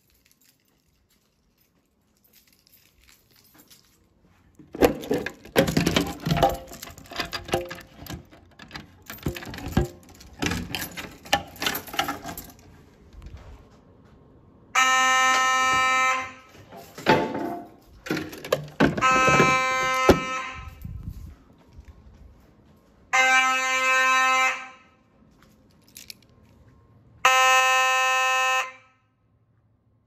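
Simplex 2901-9838 fire alarm horn sounding steady, buzzy blasts of about a second and a half, repeating about every four seconds through the second half. Before the horn starts there is a run of sharp clattering knocks.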